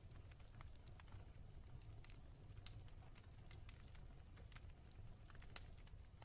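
Wood fire burning in a fireplace, crackling faintly: scattered sharp pops and snaps over a low, steady rumble, with one louder pop near the end.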